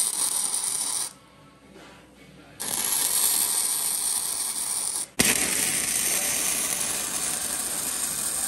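Electric welding arc crackling and hissing in three runs: it stops for about a second and a half about a second in, and breaks off very briefly about five seconds in before starting again.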